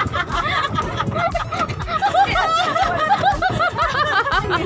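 Women laughing, one in a quick run of short repeated ha-ha's, another giggling.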